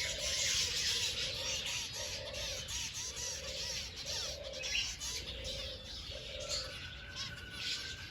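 A flock of birds calling together: a lower call repeats roughly once a second over a dense chorus of high chirps.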